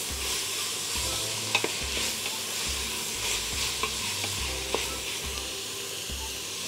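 Vegetable filling frying in a stainless steel pot and stirred with a wooden spoon: a steady sizzle, with a couple of light knocks of the spoon against the pot.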